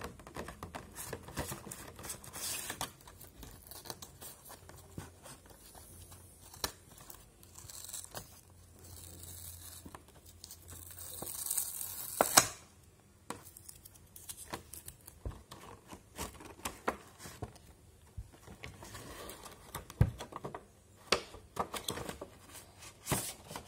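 Clear plastic packaging box being handled and opened: crinkling plastic, taps and clicks, and the tearing of a sticker being peeled off. The peel builds for a couple of seconds about ten seconds in and ends with a sharp snap near the twelve-second mark.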